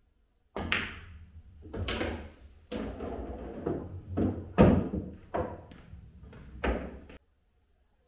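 Pool balls knocking on a pool table. The cue tip strikes the cue ball, then the balls click together and thud off the cushions and into the pocket, and balls are set back on the cloth. There are about half a dozen sharp knocks with a low rumble between them. They start about half a second in and stop abruptly about a second before the end.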